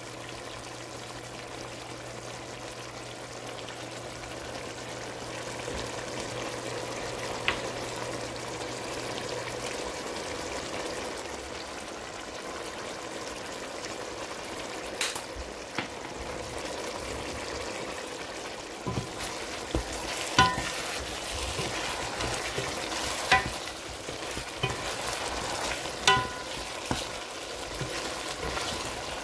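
Spiced chicken curry base for biryani sizzling and bubbling steadily in a pot on the stove. In the second half a spoon stirs it, knocking against the pot a few times.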